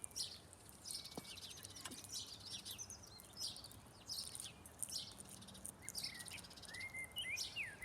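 Small birds chirping and singing: a steady scatter of quick, high chirps, with a few lower whistled notes near the end.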